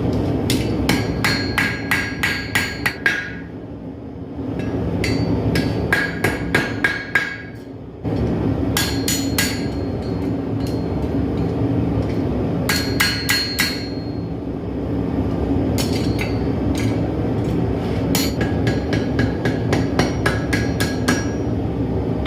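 Blacksmith's hammer striking hot steel on an anvil in runs of quick blows, several a second, each with a bright metallic ring, with short pauses between the runs. A steady low rush of noise runs underneath.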